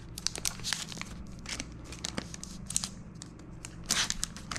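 Crinkly plastic or foil packaging of a Pokémon card pack being handled and torn open, with irregular crackles and a louder burst of crinkling about four seconds in.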